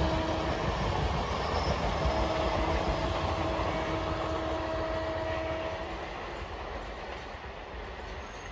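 Coaches of an Indian Railways express passenger train running past at speed, a dense steady rumble with a faint steady tone over it. About six seconds in the tone stops and the rumble fades as the last coach goes by.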